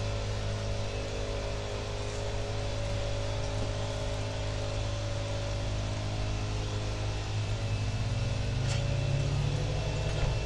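A neighbour's small lawn-equipment engine running steadily, rising a little in pitch and loudness about eight seconds in, with a short click near the end.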